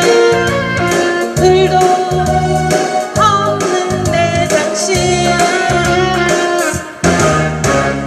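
Trot song: a woman singing into a microphone over backing music with a bass line and drums, heard through the stage sound system.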